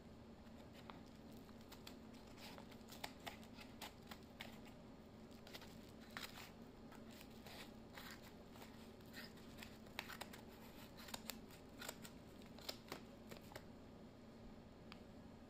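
Scissors snipping through the edge of a plastic mailer bag: a run of short, crisp cuts that starts a few seconds in and stops shortly before the end.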